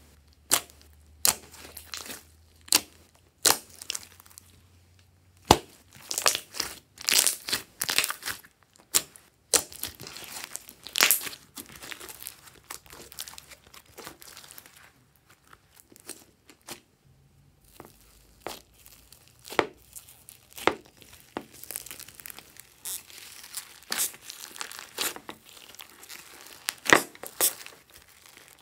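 Hands squeezing, poking and stretching glossy slime, giving an irregular string of sharp sticky pops and crackles, some single loud clicks, others in quick clusters.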